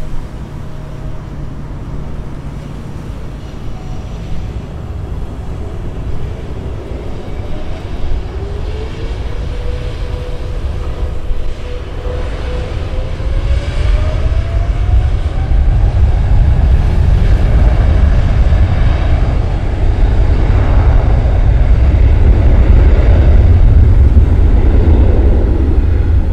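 Boeing 777-300ER's GE90-115B jet engines spooling up to takeoff thrust: a whine that rises in pitch and a deep rumble that builds steadily louder.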